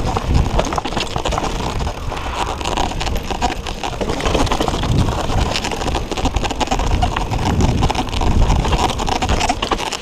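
Mountain bike riding fast down a rough dirt forest trail: continuous rattling and knocking of the bike over bumps, tyre rumble on the dirt, and wind buffeting the microphone.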